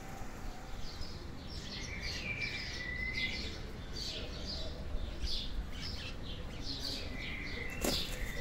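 Birds chirping: a run of short, high chirps several times a second, with a longer whistled note a couple of seconds in, over a low background rumble.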